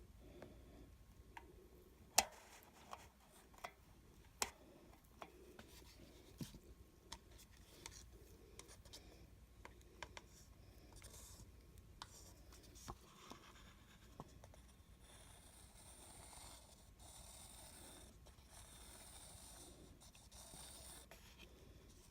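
Faint handling sounds of an acrylic paint pour: scattered light taps and clicks as paint cups are picked up and set down, with a soft scraping rustle for several seconds past the middle.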